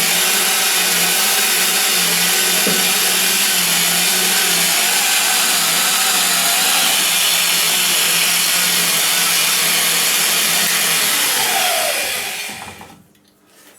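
A 50 mm carbide-tipped hole saw driven by a drill, grinding loudly against 3 mm steel sheet over a steady motor hum, its pilot drill bit dull. Near the end the motor stops and the sound winds down with a falling pitch.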